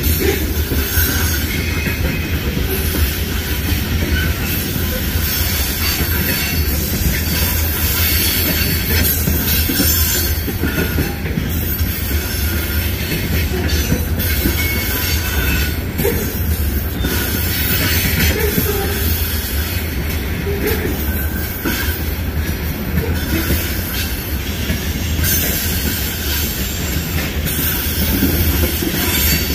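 Freight train of covered hopper cars rolling steadily past: steel wheels running on the rails in a continuous, even noise.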